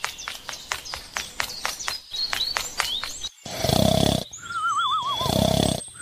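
A cartoon snoring sound effect: a rasping snore in, then a wavering whistle out, then a second rasping snore. Before it comes a run of quick light ticks, about six a second, lasting roughly three seconds.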